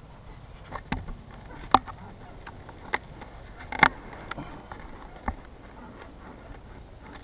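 Handling noises in an off-road buggy's cockpit: about five sharp clicks and knocks, spaced a second or so apart, over a low steady hum.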